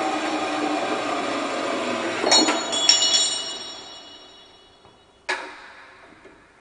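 A 7-inch metal-cutting band saw cuts through a square steel tube, its blade running steadily for about two seconds. As the cut finishes there are two metallic clanks with a high ringing, a second or so apart, and the saw's running noise fades away. About five seconds in comes a single sharp metal knock as the workpiece is handled.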